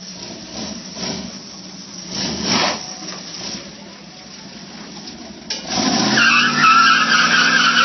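A vehicle doing a burnout: the engine revs in a couple of swells, then about six seconds in the tyres break loose into a loud, steady squeal over the engine.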